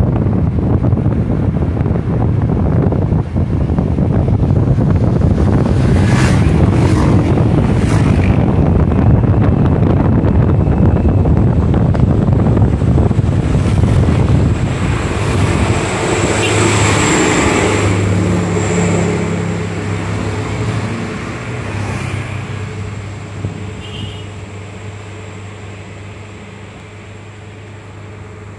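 Motorbike riding along a road, with wind rushing over the microphone over the engine's running. About two-thirds of the way through, the rush fades away as the bike slows, leaving a quieter steady low hum.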